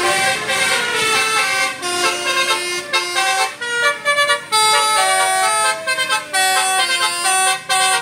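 Telolet horn on a Basuri coach: a multi-tone musical bus horn playing a quick tune of stepped notes, with a brief sliding tone about five seconds in.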